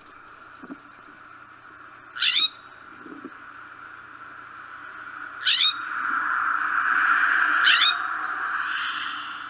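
California scrub-jay giving three short, harsh, rising calls a few seconds apart, over a steady hiss that swells in the middle.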